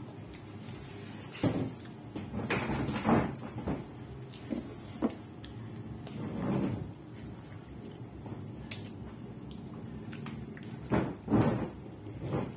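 A person eating soft durian flesh by hand. Irregular smacking mouth sounds come with a few short knocks from handling the fruit, the loudest near the start and again about two-thirds of the way through.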